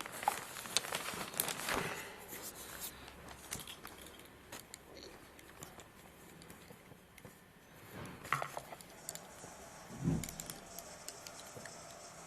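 Metal parts of a Franchi Affinity One semi-automatic shotgun being handled during disassembly. Small sharp clicks and scrapes come mostly in the first two seconds, with rustling in between, and there is a louder knock about ten seconds in.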